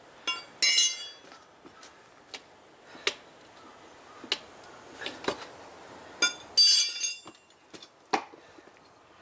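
Metal hand tools clinking and knocking during a hand-fitted motorcycle tyre change. Two louder clinks ring metallically, about a second in and again near the end, among several single sharp knocks.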